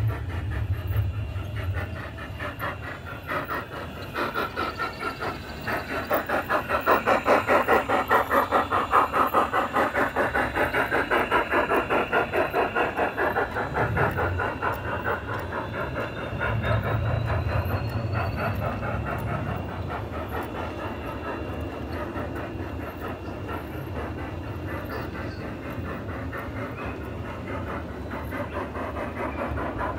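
A 1:20.3-scale model steam train rolling along aluminium rails, its wheels making a steady rhythmic clatter with about two swells a second. It is loudest about a quarter of the way in and eases off through the second half.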